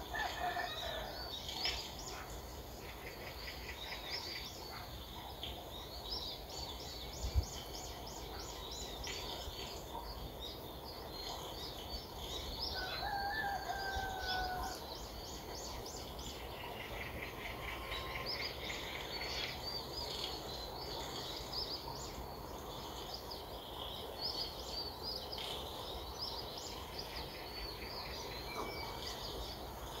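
Many small birds chirping and trilling over one another, with a steady low background hiss. About thirteen seconds in comes a longer, steadier call lasting over a second. A single sharp knock sounds about seven seconds in.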